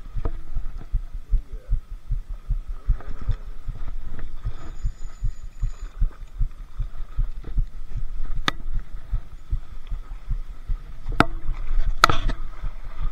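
Irregular low thumps and rustling from a body-worn action camera being jostled as the angler moves and handles his gear, with a few sharp clicks in the second half.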